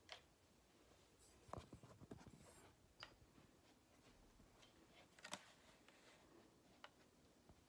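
Near silence: room tone with a few faint, short clicks and rustles.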